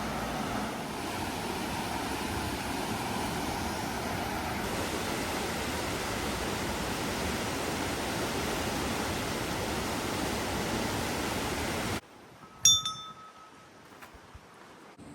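Steady rushing noise that stops abruptly about twelve seconds in, followed by a single bright, ringing chime-like ding.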